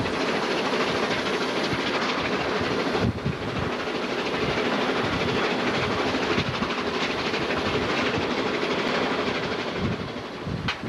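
Narrow-gauge NG15 steam locomotive under way, heard from inside its cab: a steady, dense clattering rumble from the running engine and its wheels on the rails.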